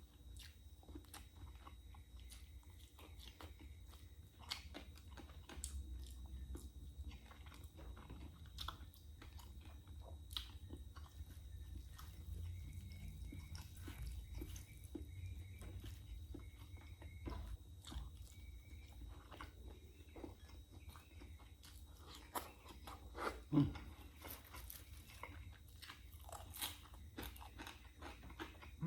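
A person chewing and crunching fried food close to the microphone, with many small crackles and clicks, and one louder sound near the end.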